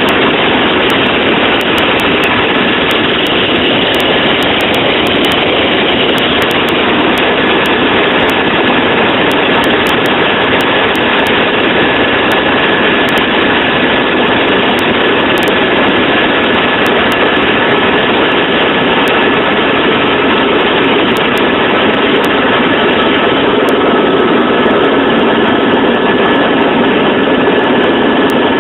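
Helicopter engine and rotor noise heard inside the cabin: loud and steady, with a thin steady high tone over it.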